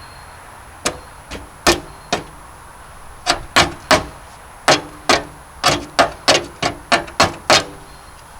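Hammer blows on the jammed wood chipper, about fifteen sharp metallic strikes at an uneven pace, quickening in the second half, as a stuck piece of wood is beaten loose from the chipper's works.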